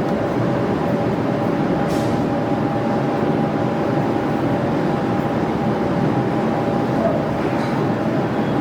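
Steady machine hum with a rushing noise and a constant mid-pitched whine, unchanged throughout, with one faint click about two seconds in.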